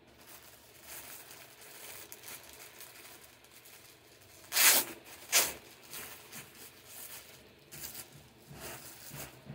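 Plastic packaging bags rustling and crinkling as clothes are pulled out of them. About halfway through come two loud, sharp bursts as a bag is ripped open.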